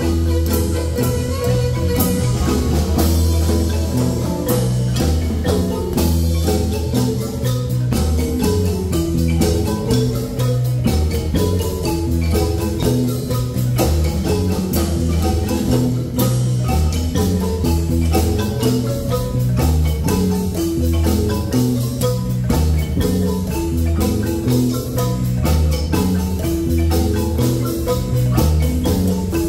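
A large Guatemalan marimba played by four players at once with rubber-headed mallets: a fast run of bright wooden notes over deep bass notes, with regular drum hits keeping the beat.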